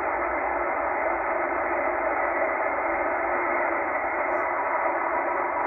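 Shortwave receiver static from a Tecsun H-501X in upper-sideband mode, tuned to an empty utility channel near 12.577 MHz: a steady, even hiss with a sharp upper cutoff set by the receiver filter, and no signal in it.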